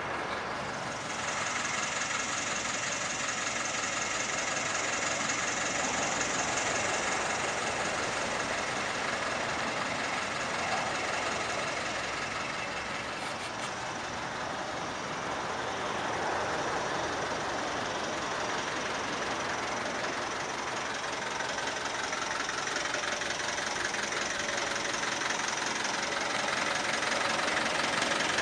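Fiat 615 N engine idling steadily.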